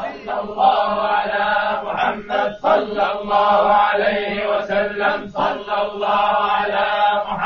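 Male chanting of salawat, blessings on the Prophet Muhammad in Arabic, sung as a slow, sustained melodic line over a steady low held tone.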